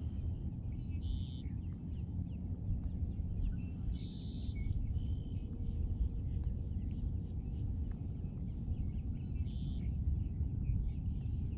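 Outdoor ambience under a steady low rumble, with a bird giving three short, high calls: about a second in, about four seconds in, and near the end.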